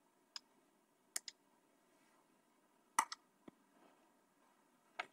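Faint computer mouse clicks, a few single and some in quick pairs, as objects are selected on screen.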